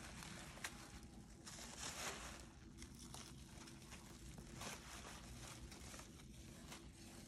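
Plastic bubble wrap crinkling and rustling in uneven flurries as it is pulled off porcelain bowls, with one sharp tick about half a second in.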